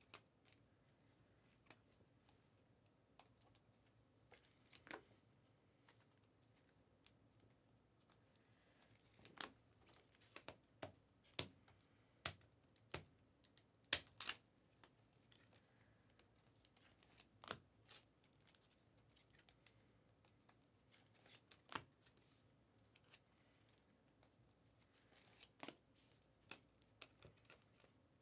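Faint, scattered clicks and slides of trading cards being handled and flipped through by hand, with the sharpest tap about halfway through.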